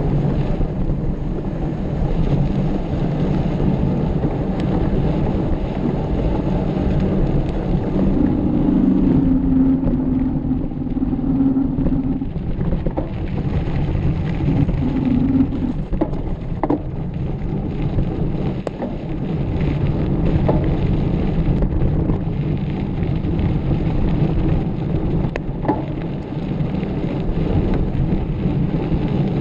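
Wind buffeting and rolling rumble on the microphone of a camera carried on a mountain bike being ridden hard, with a few light knocks and rattles.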